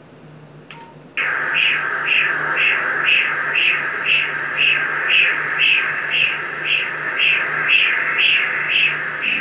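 Pulsed-wave Doppler ultrasound audio of blood flow in a pregnancy scan: a short machine beep, then a rhythmic whooshing pulse about twice a second that starts suddenly about a second in, over a steady low hum from the machine.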